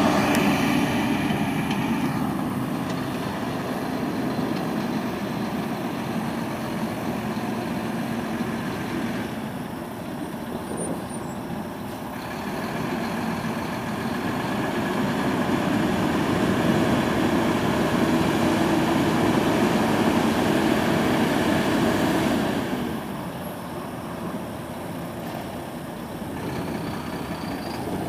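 Mack GU semi truck's 10.8-litre six-cylinder diesel engine running steadily, growing louder for a stretch in the middle and dropping back near the end.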